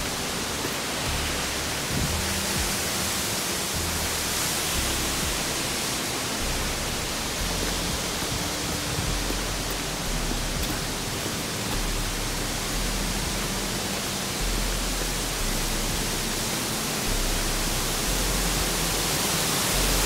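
Steady rushing hiss of a waterfall's falling water, with an uneven low rumble underneath.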